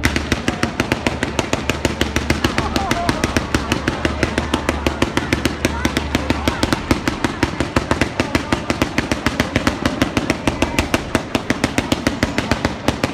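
Fireworks going off in a fast, unbroken run of sharp pops, many a second, with voices of onlookers faintly underneath.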